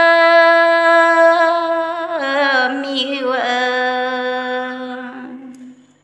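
A woman singing unaccompanied in Red Dao folk style: a long held note that steps down in pitch midway, is held on the lower note, then fades out near the end.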